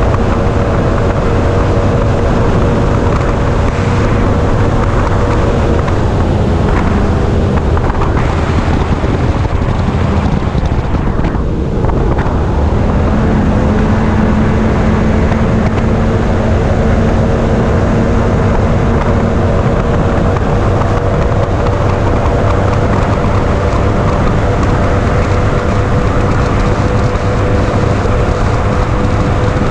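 Bass boat's 300 XS outboard running steadily at high speed, with wind noise on the microphone.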